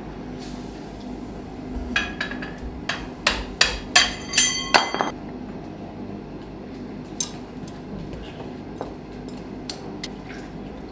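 Blacksmith's hammer striking iron on an anvil: a quick run of about ten blows over some three seconds, the later ones ringing out metallically, followed by a few softer, scattered knocks.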